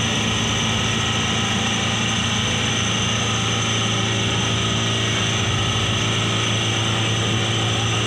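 Light truck's engine held at steady high revs under load while the truck is bogged in deep mud; the pitch stays level throughout.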